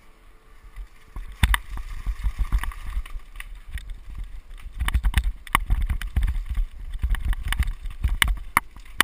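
Fixed-gear bike's 28 mm Schwalbe Marathon Supreme tyres rolling over a loose gravel path: irregular crunching with many small clicks and low knocks, starting about a second and a half in.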